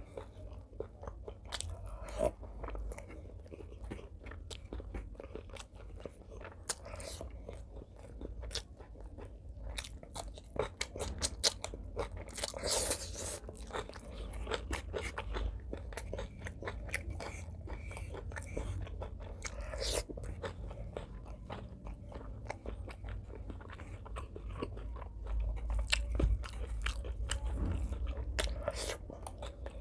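Close-miked chewing and wet mouth sounds of someone eating rice and curry by hand: a steady stream of small clicks and smacks, with a few louder ones.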